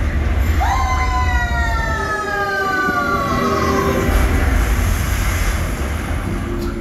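Cartoon falling-whistle sound effect from the ride's soundtrack: a quick upward swoop, then one long, slowly falling whistle lasting about three seconds. A steady deep rumble runs underneath.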